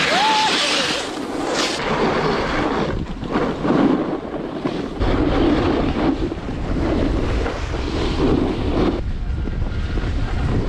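Snow hissing and scraping under a rider's edges while going down a groomed piste of mostly machine-made snow, in repeated swells. Wind buffets the microphone, with a heavy low rumble from about halfway.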